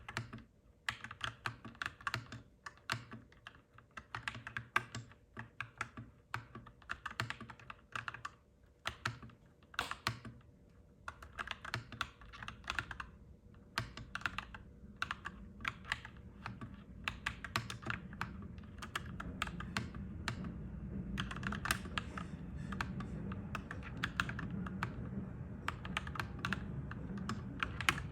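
Clacky mechanical keyboard being typed on at a steady pace, irregular key clicks with short pauses. A low rumble builds up underneath from about halfway through.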